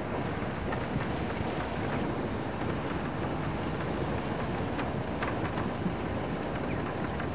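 Steady noise of a game-drive vehicle driving along a sandy dirt track, engine and tyres, with wind on the microphone.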